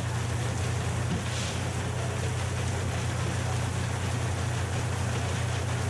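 Artificial rain from a film-set rain machine pouring down steadily in a hiss of falling water, over a steady low mechanical hum.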